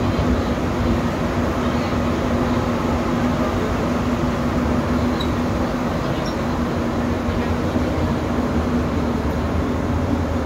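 Montreal metro train running at speed through a tunnel, heard from inside the car: the steady rumble of its rubber-tyred running gear with a steady low hum.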